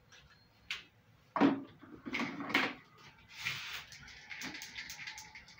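Marker pen writing on a whiteboard: a few short separate strokes, then a longer run of quick scratching strokes in the second half.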